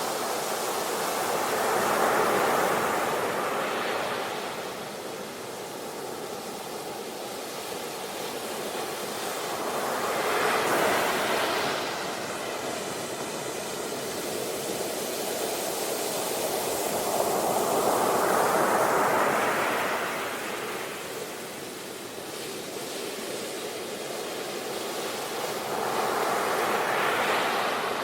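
Sea waves breaking in four surges about eight seconds apart, each building to a rush and then fading back.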